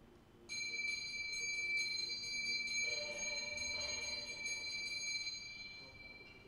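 A hand bell of the kind rung during a Hindu fire ritual, set ringing suddenly about half a second in and kept going with repeated strikes of its clapper for about five seconds, then fading out near the end.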